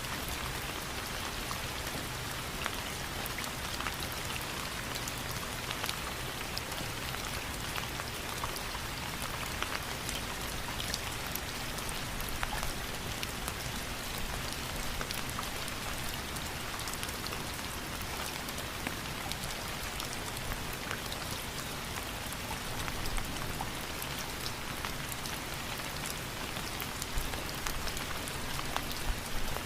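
Steady rain falling, with many individual drops ticking on a surface over a continuous hiss.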